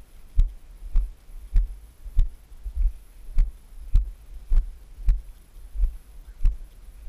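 Walking footsteps on grass and dry leaf litter: a steady run of dull low thuds, each with a light crunch, a little under two steps a second.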